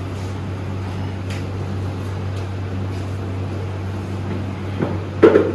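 A steady low mechanical hum, like a fan or air conditioner running, with a brief louder sound near the end.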